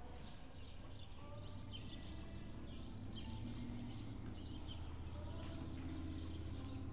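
Muffled hoofbeats of an Arabian mare moving on soft arena sand under a rider, over a steady low hum, with a few faint bird chirps.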